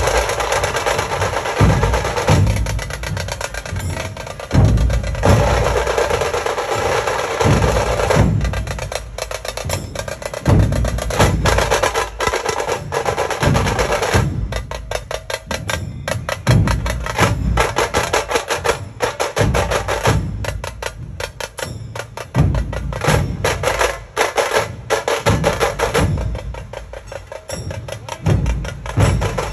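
A large Maharashtrian dhol troupe drumming together: many big barrel-shaped dhol drums beaten with sticks in a fast, driving rhythm of deep booms and sharp cracks. The pattern changes a few times and becomes a dense, rapid roll from about fourteen seconds in.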